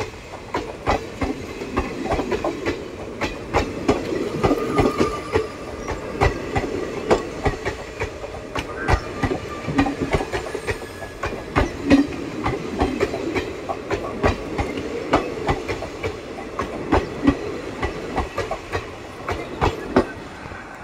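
Amaravathi Express passenger coaches running past close by, their wheels clattering over the rail joints in a continuous run of sharp knocks over a steady rumble.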